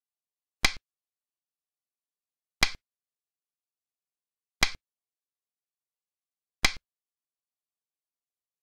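Xiangqi game-replay sound effect: a sharp click of a piece being set down on the board, four times, evenly two seconds apart, marking each move.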